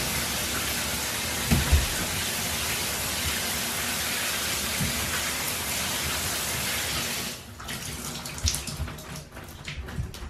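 Shower running with a steady hiss of spray, shut off about seven seconds in; scattered drips and light knocks follow.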